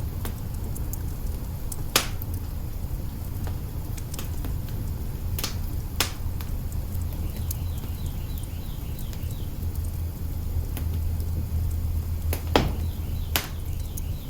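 Wood fire in an open hearth crackling, with a handful of sharp pops and smaller ticks over a low steady rumble.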